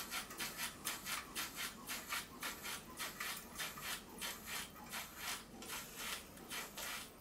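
Model single-acting steam beam engine running slowly on steam, giving soft, even exhaust chuffs about four a second.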